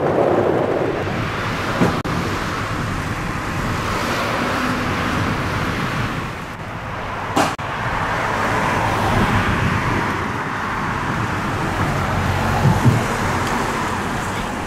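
Road traffic alongside the sidewalk: passing cars' tyre and engine noise swelling and fading, with a few short sharp clicks.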